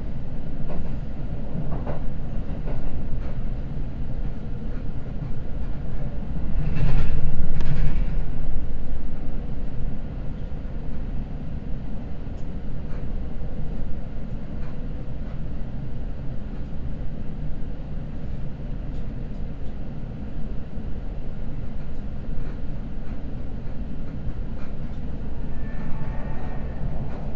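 Seibu Red Arrow limited express train running at speed on the line, with the steady low rumble of wheels on rails. A louder rushing surge comes about seven seconds in.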